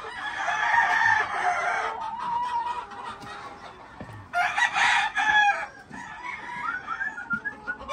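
Gamecocks crowing: one long crow in the first two seconds and another a little past four seconds, with short rising calls near the end.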